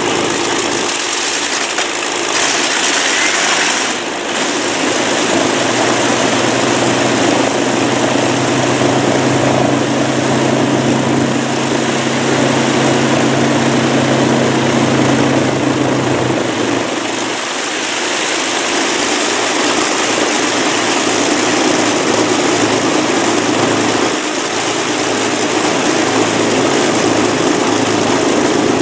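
Avro Lancaster bomber's Merlin V12 piston engines running on the ground with their propellers turning: a loud, steady engine and propeller drone. A low note comes in about five seconds in and drops out past the middle as the engine note shifts.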